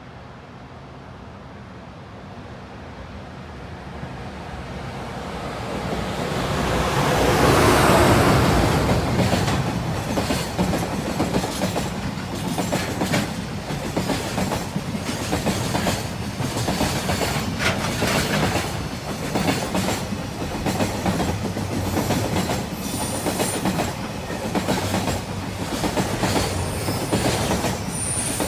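Freight train behind a JR Freight EH200 electric locomotive approaching and passing close, loudest about eight seconds in as the locomotive goes by. This is followed by a long, steady clatter of wagon wheels over the rail joints, with brief high wheel squeals near the end.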